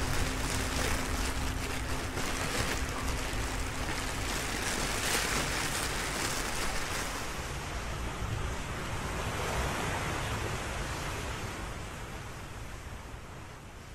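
Ocean waves washing in and out as an even rushing noise, swelling about five seconds in and again near ten seconds, then fading away near the end. A faint low hum sits under it for the first few seconds.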